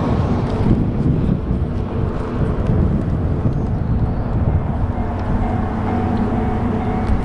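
A train running, a steady low rumble with a faint steady tone joining about five seconds in.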